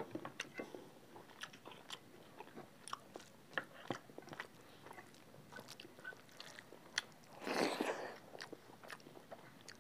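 Close-up mouth sounds of two people eating rice, egg curry and dal by hand: chewing, lip smacks and small wet clicks scattered through, with one longer, louder rushing sound about three-quarters of the way through.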